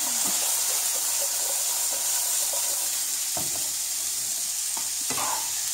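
Wet, just-boiled edamame pods sizzling steadily in hot sesame oil in a frying pan, the sizzle starting suddenly. A couple of faint knocks near the middle and end.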